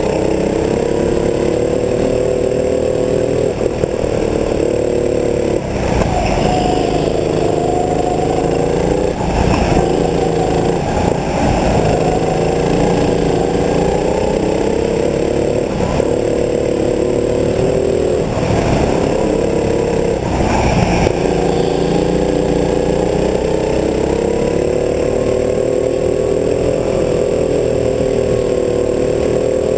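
Go-kart engine running hard through a lap, its note rising and falling as the driver accelerates and lifts for the bends. The note breaks up in two rougher stretches of rapid up-and-down revving, about a quarter and about two-thirds of the way through.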